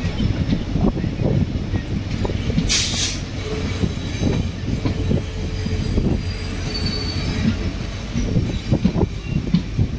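Passenger train coach running along the track: wheels rumbling and knocking over the rails. A short, sharp burst of hiss comes about three seconds in, and a faint thin wheel squeal near the seventh second.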